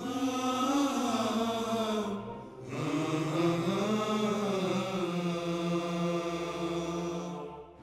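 A solo voice chanting melodically with no instruments: a short phrase, a brief pause about two seconds in, then a longer phrase with long held notes.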